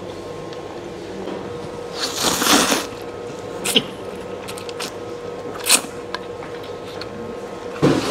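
A man slurping noodles from a bowl in several noisy sucking bursts: a long one about two seconds in, short sharp ones near four and six seconds, and another at the end.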